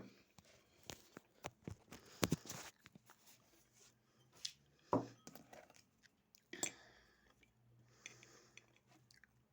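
A person eating soup: quiet chewing and mouth noises with scattered short clicks, the sharpest about two seconds in and others near five and six and a half seconds.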